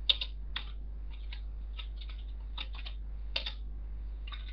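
Computer keyboard being typed on: a run of short, irregular key clicks as a brief text command is keyed in and entered.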